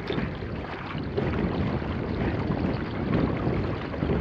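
Water splashing and rushing along the hull of an Epic 18 sea kayak paddled at sprint pace, with wind buffeting the microphone.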